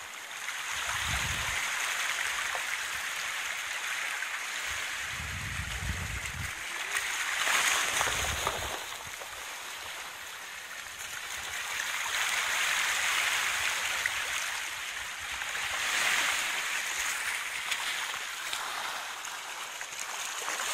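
Water splashing and sloshing from a Newfoundland dog swimming and towing a finned snorkel diver. The splashing swells and fades, loudest about eight and sixteen seconds in, with a few brief low rumbles.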